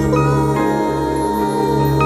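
Instrumental passage of a slow pop love ballad: steady bass and held keyboard chords with clear bell-like mallet notes on top, no singing.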